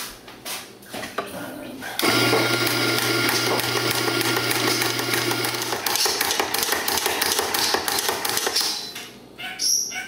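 Rancilio Rocky burr coffee grinder grinding coffee beans: it starts about two seconds in and runs for about seven seconds, a steady motor hum under the crunching of the beans, and stops near the end. A few light clicks come before it starts.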